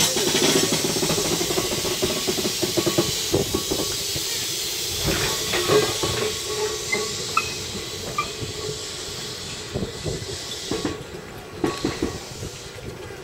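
Izu-Hakone Railway electric commuter car rolling slowly past on curved yard track during shunting, with a steady hiss that fades as it moves away. Irregular clanks from the wheels over rail joints and points, and a few short squeaks.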